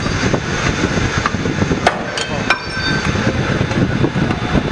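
Ironworker (combined punch and shear) running, with a steady machine rumble and several sharp metallic clanks, some followed by a brief ringing, as it shears steel stock and cut pieces drop.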